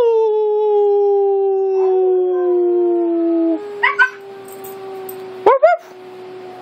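Siberian husky howling: one long howl that rises quickly, then slides slowly down in pitch for about three and a half seconds. Short rising-and-falling yelps follow, twice.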